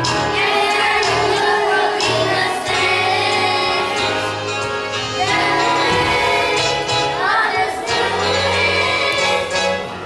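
A choir of children singing a song from the musical, with instrumental accompaniment.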